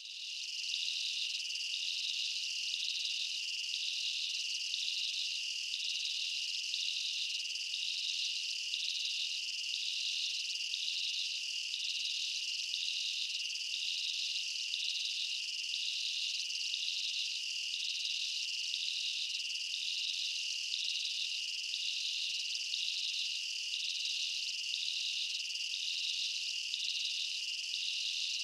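Insect chorus: a steady high-pitched drone with a pulsing chirp laid over it, repeating evenly a little more than once a second.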